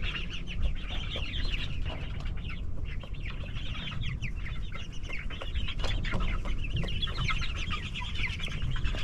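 A flock of Cornish broiler chickens peeping and clucking, many short high calls overlapping and falling in pitch.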